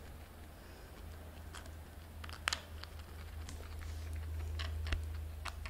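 Guinea pig crunching a cookie: irregular small crisp clicks of chewing, over a low steady hum.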